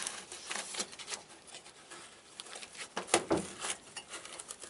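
Thin sheet-metal 6-inch start collar being bent and crimped by hand into a vent opening: irregular scraping and clicking of the metal, with a louder cluster about three seconds in.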